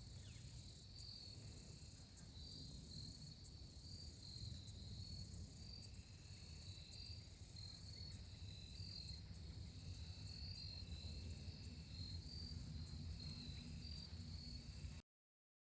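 Faint insects chirping in a steady repeating pulse over a low rumble, which fits wind on the microphone. All sound cuts off abruptly near the end.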